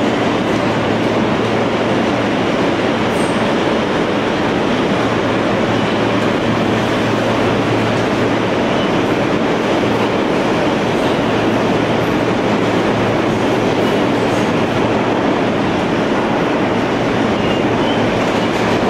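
New York City subway car running between stations, heard from inside the car: loud, steady rumble and rattle of wheels on rail, with a low steady hum underneath.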